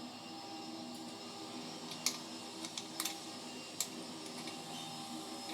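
A few sharp small clicks of parts and tools being handled while taking apart a camera, about two, three and four seconds in, over a steady background hum.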